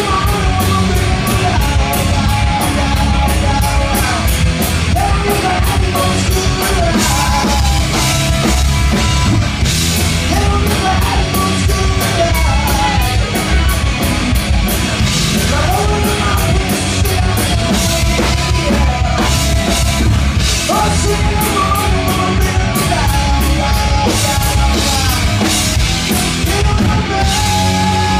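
Live rock band playing loudly, a drum kit keeping a steady, driving beat under the pitched instruments.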